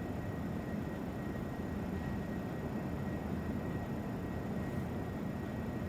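Steady background hum and hiss of room noise, with a faint high whine held on one pitch.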